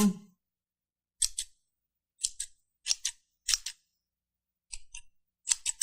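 Barber's scissors snipping hair close to the ear, in a holophonic (binaural) recording: quick clusters of two or three sharp snips about once a second, turning into rapid continuous snipping near the end. A brief voiced sound at the very start.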